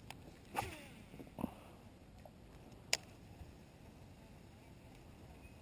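A few scattered knocks and clicks from handling a fishing rod in a kayak, the sharpest about three seconds in, over a faint steady background.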